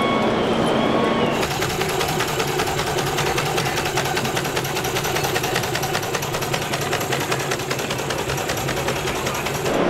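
Miniature ridable steam traction engine running with a rapid, even mechanical clatter. It starts abruptly about a second in, after a short stretch of hall crowd chatter.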